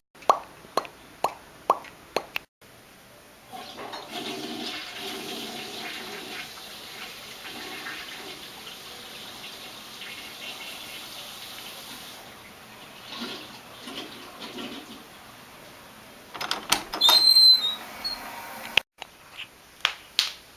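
A toilet flushing, a long rushing of water that runs on for about twelve seconds as the tank refills. A few sharp clicks come before it, and a burst of loud clicks and knocks near the end.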